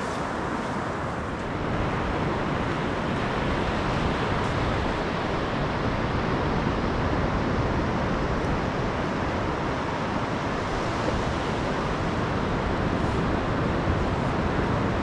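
Surf breaking on a sandy beach under steady wind noise on the microphone, a continuous rushing that gets a little louder about two seconds in.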